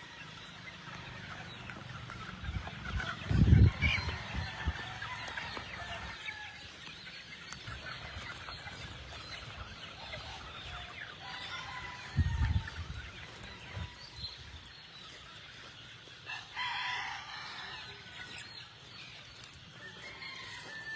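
Free-range chickens on a gamefowl farm clucking, with a rooster crowing near the end. Two loud low thumps break in, one early and one about midway.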